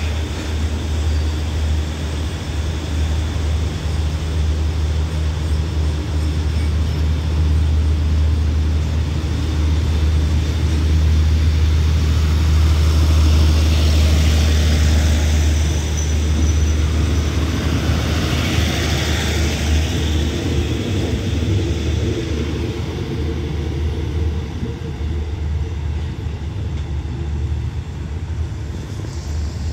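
Diesel express train pulling out of a station. A steady low engine drone runs under wheel and rail noise that swells around the middle as the carriages pass, then fades as the train moves off.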